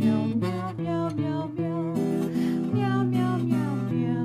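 Background music: acoustic guitar strumming steady chords.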